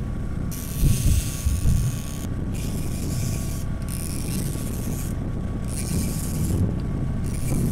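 Fishing reel rasping in runs of about a second with short breaks, with a fish on the line and the rod bent hard. A low rumble of wind and water runs beneath it.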